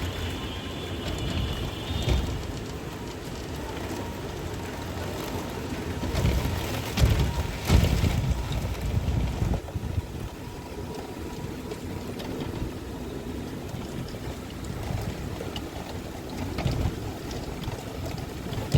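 Wind blowing in gusts, rumbling on the microphone, with the strongest gusts about six to eight seconds in.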